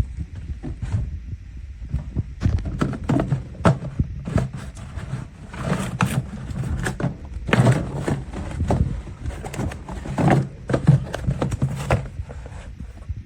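Irregular knocks, clicks and clatter of objects being handled and set down, several a second and of uneven loudness.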